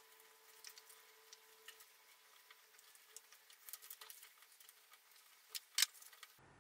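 Faint rustling and crinkling of pre-cut paper pieces being handled, folded and pressed flat by hand, with many small scattered clicks and two louder, sharper clicks near the end.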